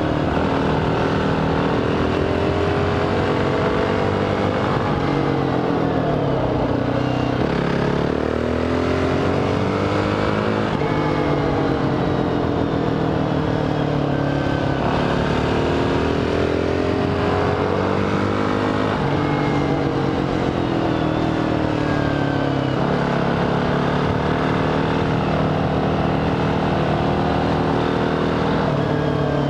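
Husqvarna TE449 single-cylinder dual-sport motorcycle engine running hard, its revs climbing and dropping over and over through the curves as the rider accelerates, shifts and rolls off.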